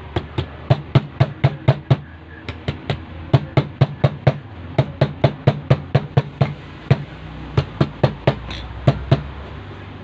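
Rapid hammer taps on the rewound coils of a washing machine motor, beating the windings down so they fit. The taps come about five a second in short runs with brief pauses and stop shortly before the end.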